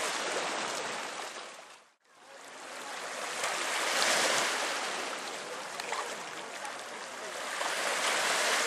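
Rushing outdoor noise that swells and fades every few seconds. It drops out briefly about two seconds in.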